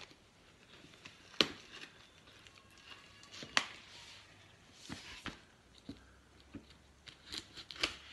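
Scissors snipping into a plastic-wrapped, taped courier parcel, with the plastic packaging crinkling and rustling. Scattered sharp snips and crackles, the loudest about a second and a half and three and a half seconds in.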